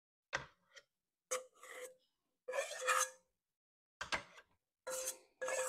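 A spoon scraping sticky marshmallow creme out of a stainless steel mixing bowl, in a series of short scrapes.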